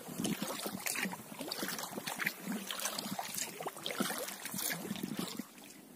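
Water lapping and trickling against a small boat on a river, with scattered small drips and splashes. It drops away about five and a half seconds in.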